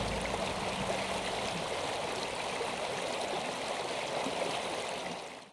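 Steady rush of a river flowing, an even hiss with small crackles, after the last low notes of a music track die away at the start; it fades and cuts off near the end.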